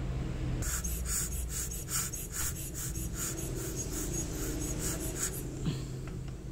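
Steel watchmaker's tools scratching and scraping on a Seiko NH36A automatic watch movement, in a quick run of short strokes about five a second that stop near the end.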